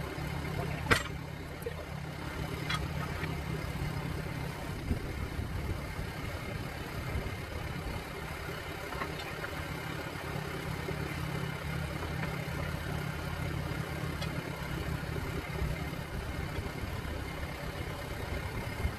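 An engine idling steadily as a low hum, with a sharp metal clank about a second in and a few fainter knocks as steel tire irons pry at the bead of a large backhoe tire on its steel rim.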